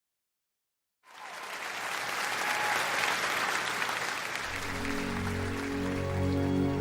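Silence for about a second, then an audience applauding. About four and a half seconds in, the sustained low notes of the next song's instrumental opening come in under the applause.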